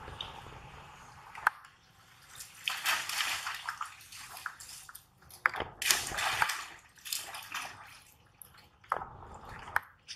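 Long-tailed macaques splashing in shallow floodwater: repeated bursts of splashing, the loudest about six seconds in as one plunges into the water.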